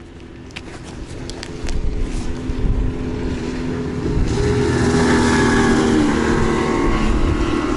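A motorboat engine approaching, its steady hum growing louder, with rushing noise building from about halfway through. A few light clicks come in the first two seconds.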